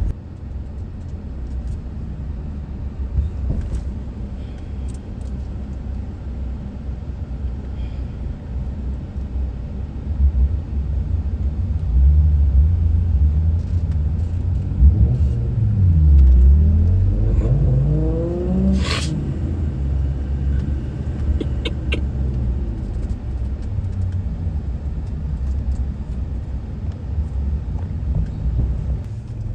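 A car driving along, with steady engine and road rumble. About two-thirds of the way through, the engine note dips and then climbs again as the car picks up speed. A sharp click follows shortly after.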